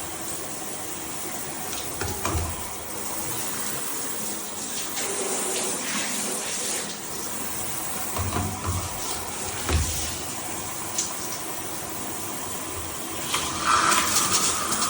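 Shower head spraying a steady stream of water, with a few soft low knocks. A louder, higher hiss joins in near the end.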